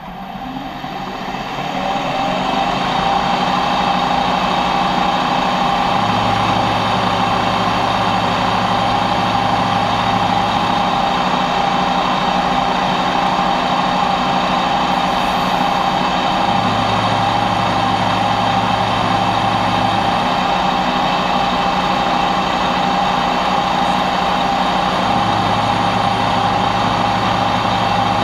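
Bridgeport milling machine's end mill cutting the knobs into a metal pommel blank held in a dividing head: a steady whine over the cutting noise. It swells up over the first two or three seconds, then holds level.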